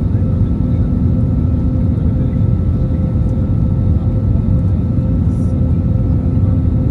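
Steady cabin noise inside a British Airways Airbus A320neo: a loud, even rumble of engines and airflow with two faint steady whining tones above it.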